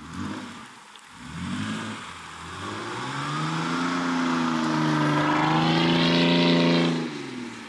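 All-wheel-drive car engine revving through a loud exhaust: a few short blips of throttle, then a long climb to high revs held for several seconds before dropping back near the end.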